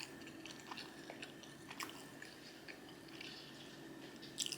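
Quiet close-miked chewing: soft, wet mouth clicks now and then, over a steady low hum in the room.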